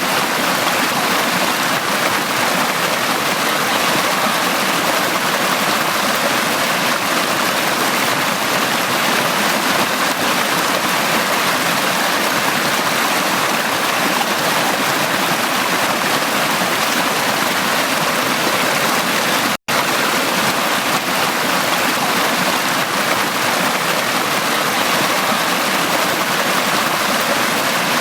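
Valley stream water flowing and rushing steadily over rocks. The sound cuts out for a split second about two-thirds of the way through.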